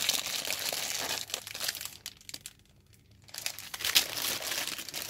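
Gift wrapping crinkling and rustling as hands pull it off a present. It pauses briefly about two seconds in, then starts again with a sharp crackle.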